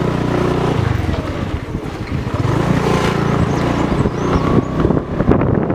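A vehicle's engine running at low revs, its pitch shifting a couple of times, with rattling handling noise on the microphone toward the end.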